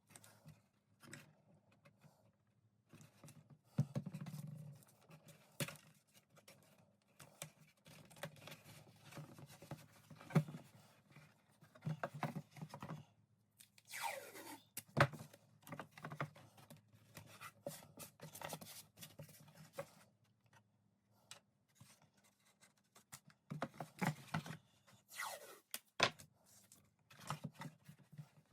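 Irregular small scrapes, clicks and taps from hands working on small wooden model-kit parts, with a few short tearing or sliding sounds.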